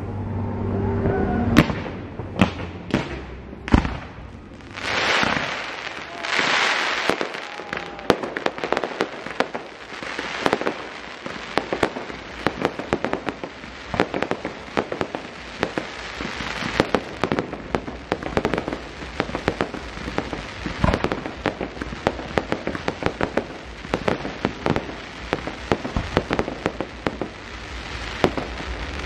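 Aerial fireworks going off: a run of sharp bangs from bursting shells, two hissing swells about five and six and a half seconds in, then dense rapid crackling and popping.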